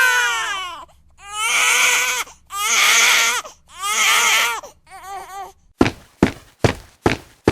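Loud crying: four long wailing cries and a shorter sob, the reaction to an air horn blasted in the sleepers' ears. Near the end a quick run of evenly spaced sharp thumps begins, about two and a half a second.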